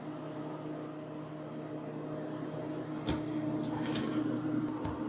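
A knife cutting through a block of butter on a plastic cutting board, with a few short knocks and scrapes of the blade on the board about three seconds in and near the end, over a steady electrical appliance hum.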